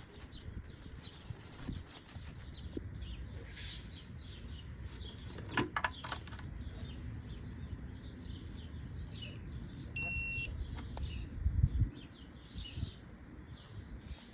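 Small birds chirping repeatedly in the background, with a couple of sharp clicks midway. A single half-second electronic beep sounds about ten seconds in.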